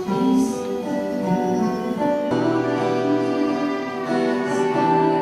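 Instrumental music of held chords, with the chord changing about two seconds in and again near the end.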